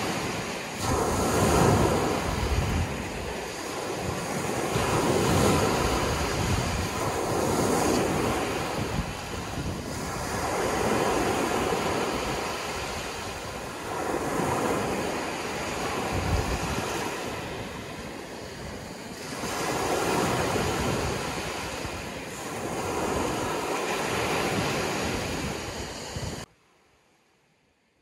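Ocean surf: waves breaking and washing in, the wash swelling and falling every few seconds. It cuts off suddenly near the end, leaving near silence.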